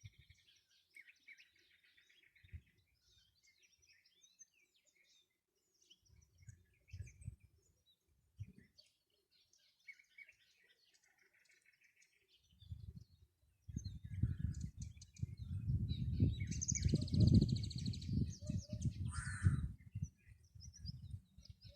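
Wild birds chirping and singing in short scattered phrases. About halfway through, a loud low rumble comes in under them and stays, while the bird calls grow louder and harsher.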